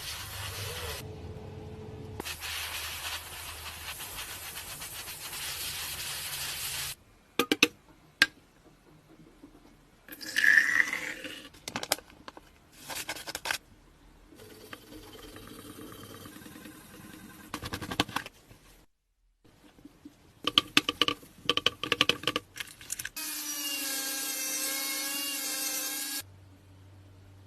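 A quick succession of workshop sounds: power tools running, scraping and knocking, each cut off abruptly, with a steady noisy stretch at first and a pitched tool whine near the end.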